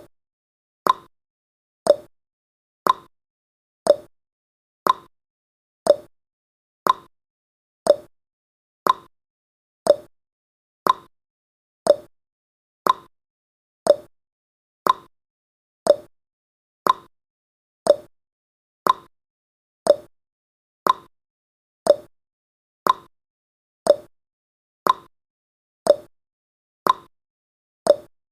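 Countdown-timer ticking sound effect: one short, sharp clock-like tick each second, perfectly regular.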